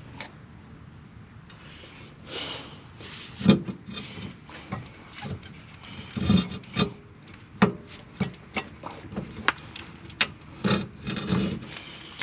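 Irregular knocks, clunks and scraping of hand tools and car parts being handled during reassembly of the suspension after an axle change, with a few louder knocks about three and a half seconds in and again in the middle.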